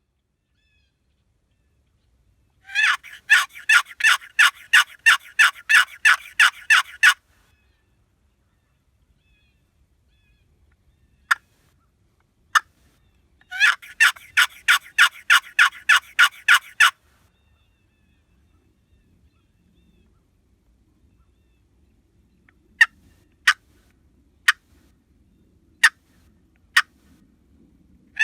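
Homemade turkey box call working a hen's yelp: two long runs of loud, evenly spaced yelps, about three a second, with single short clucks between them and several more clucks near the end.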